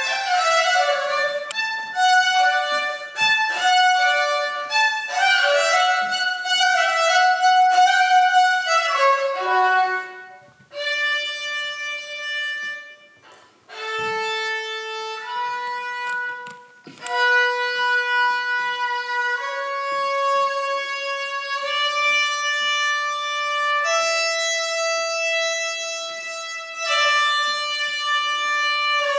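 Solo violin playing a melody: a quick run of short notes, then slower, long held notes from about ten seconds in, with a brief break a few seconds later.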